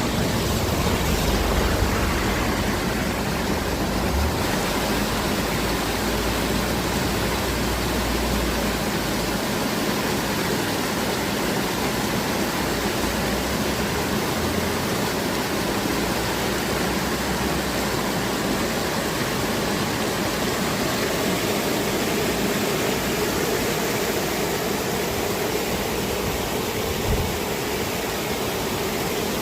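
Heavy rain falling steadily, a dense even hiss, with a low rumble underneath for the first several seconds.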